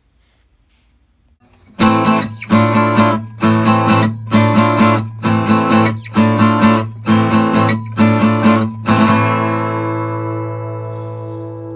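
Background music: strummed guitar coming in about two seconds in with a run of rhythmic chords, then a final chord left ringing and slowly fading.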